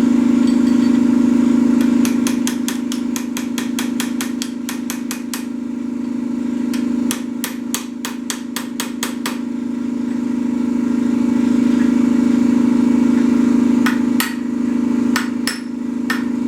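Repeated hammer blows on a steel spacer stuck on a mower deck spindle shaft, knocking it loose. The blows come in three runs of quick strikes, about five a second at first, over a steady low hum.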